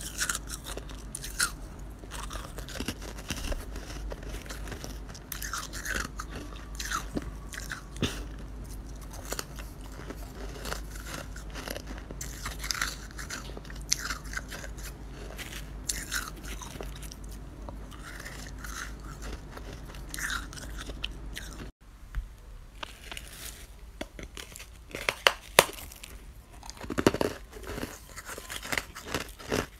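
Freezer frost being bitten and chewed close to the microphone: irregular crisp crunches, one after another. A low steady hum underneath stops abruptly about two-thirds of the way through, and the crunches after that are louder and sharper.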